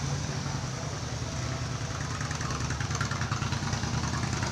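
Harley-Davidson motorcycle's V-twin engine idling steadily, with a low even pulse.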